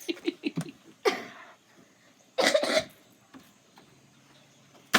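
A person's laughter trails off in quick short pulses, then two short, sharp cough-like bursts, the louder one about two and a half seconds in.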